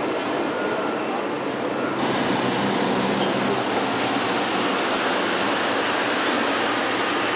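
Truck wheels turning on the motor-driven rollers of a brake test stand: a loud, steady machine-and-tyre noise that grows a little louder and brighter about two seconds in.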